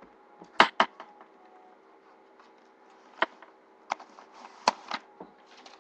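Handling noises: a few sharp clicks and taps, two in quick succession under a second in and then three more spaced about a second apart, over a faint steady hum.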